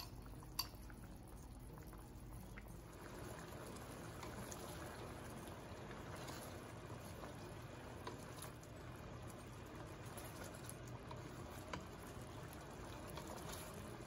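Pork belly in adobo sauce simmering in a wok, the sauce bubbling steadily and growing fuller about two and a half seconds in. A few light clicks come from a wooden spatula stirring the meat.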